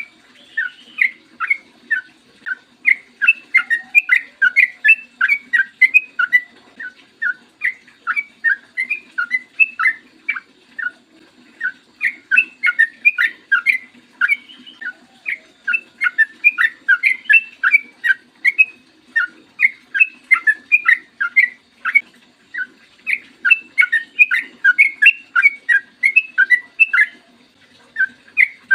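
Yellow-vented bulbul (trucukan) singing a long, continuous run of short, quick bubbling notes, several a second, broken by a couple of brief pauses.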